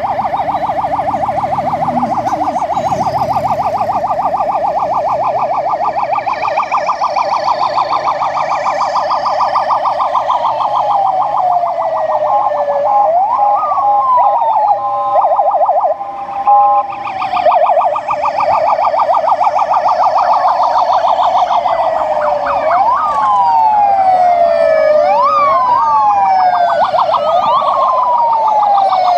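Several police sirens sounding together as a convoy of Mercedes Sprinter police vans passes. A fast yelp runs throughout. Slow rising and falling wails join from about ten seconds in, and more of them overlap near the end.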